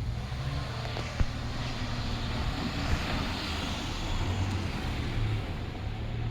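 A vehicle passing close by: a low rumble with a broad rushing noise that swells and then fades, and a sharp knock about a second in.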